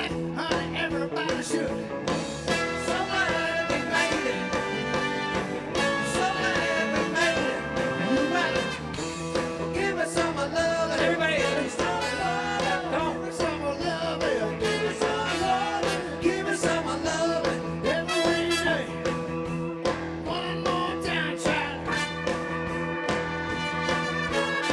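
Live blues-rock band playing, with a singer over guitar and a steady bass line.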